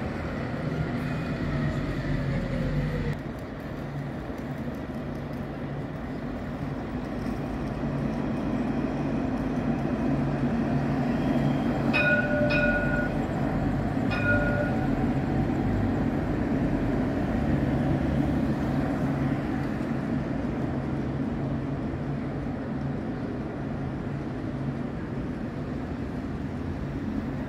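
Alstom Citadis tram passing close by: a steady rolling rumble that swells as it goes past, with three short chime tones heard during the pass. At the start, an articulated city bus moves off with a falling whine.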